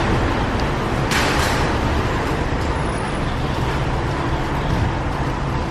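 Steady road noise of a moving car, a low rumble with hiss over it, which swells briefly about a second in.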